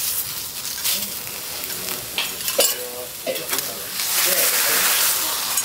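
Vegetables sizzling on a hot steel teppanyaki griddle, the hiss swelling near the end. A metal spatula clinks against the griddle plate once, with a short ring, a little over halfway through.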